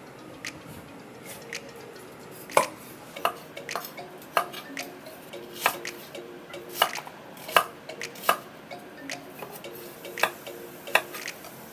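Kitchen knife chopping on a cutting board: about a dozen sharp, unevenly spaced strokes, roughly one every half to one second, over faint background music.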